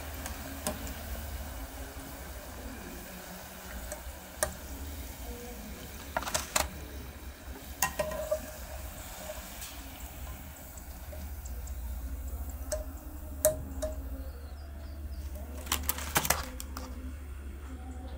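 Potato balls deep-frying in hot oil, sizzling with a steady hiss that thins out in the second half as they are lifted out. A wire spider skimmer clinks sharply against the metal pot several times.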